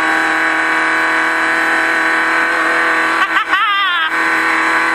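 Off-road race car's engine running steadily at speed, heard from inside the cabin. About three seconds in, a brief voice cuts in over it.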